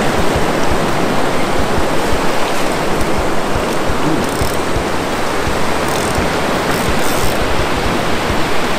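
Steady rush of ocean surf breaking on a rocky shore, with wind rumbling unevenly on the microphone.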